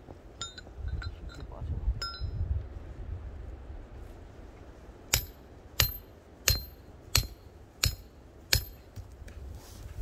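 Small metallic clinks, then six evenly spaced hammer blows on metal about two-thirds of a second apart in the second half.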